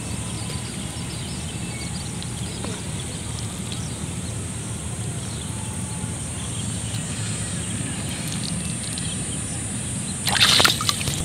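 A cloth bundle of caught fish is dropped into shallow water with one short splash near the end. Before that, over a steady high hiss, only faint small handling sounds are heard.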